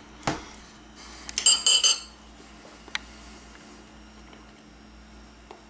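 Metal cutlery clinking against a dish: a sharp knock just after the start, a quick run of ringing clinks about a second and a half in, the loudest part, and one more light tick around three seconds in.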